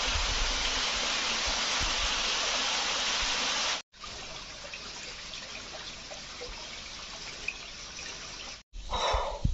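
Steady hiss of running water. It stops abruptly about four seconds in and comes back quieter, then breaks off again near the end.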